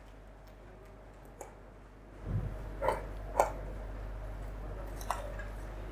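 A few light clicks and taps, four in all, the second and third the loudest, over a faint room background; a low hum comes in about two seconds in.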